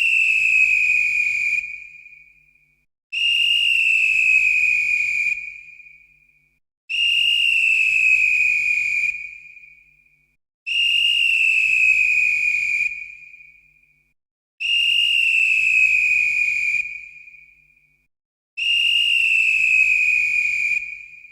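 Police whistle blown in long blasts of about two seconds each, repeated roughly every four seconds: one trailing off at the start, then five more. Each blast holds a high pitch that sinks slightly and then fades away.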